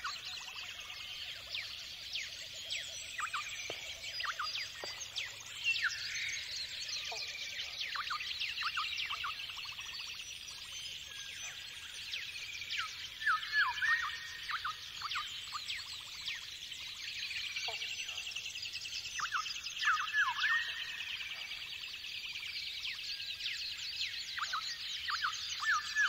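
A dense chorus of many birds calling at once: overlapping chirps, down-sweeping whistles and rapid trills. It comes from a nature-soundscape background music track.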